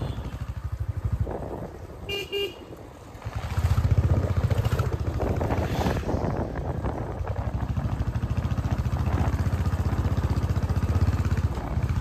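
Royal Enfield Bullet motorcycle's single-cylinder engine running on the move. It eases off and goes quieter between about one and a half and three and a half seconds in, then pulls strongly and steadily again. A horn gives two short toots about two seconds in.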